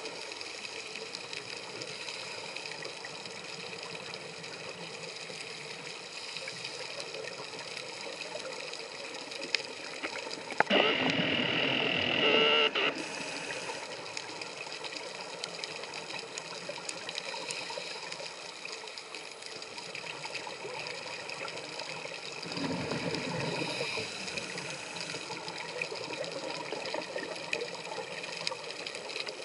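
Underwater sound of a scuba diver's regulator: a steady background noise, broken about eleven seconds in by a loud burst of exhaled bubbles lasting about two seconds, and by a weaker bubble burst about twenty-three seconds in.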